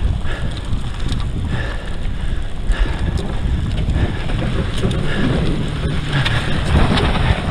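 Wind buffeting the microphone over the rumble of tyres rolling on a wet, unpaved gravel road. An oncoming car adds to the noise, which grows a little louder near the end.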